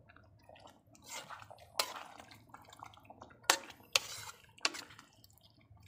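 Metal spatula stirring a thick stew in an aluminium wok: soft stirring through the sauce with about four sharp clinks of the spatula against the pan, the loudest about three and a half and four seconds in.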